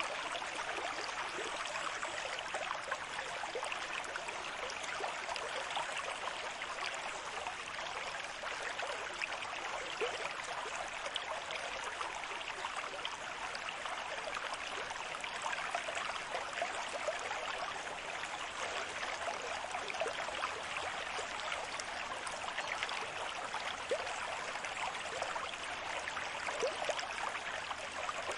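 Running water: a steady, even rush with fine bubbling and crackling, holding level throughout without surges.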